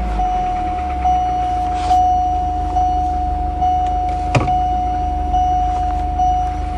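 Volvo turbo engine idling with a low hum under a steady high-pitched whine that pulses faintly about once a second. There is a sharp click about four and a half seconds in as the automatic gear selector is moved.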